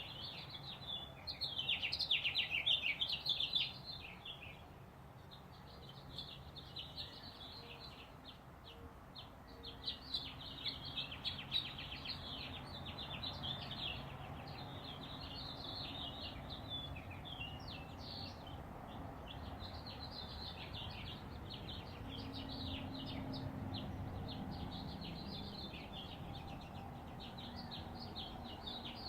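Dawn chorus of several songbirds singing at once: overlapping, rapid chirping and trilling phrases that go on without a break, loudest about one to four seconds in.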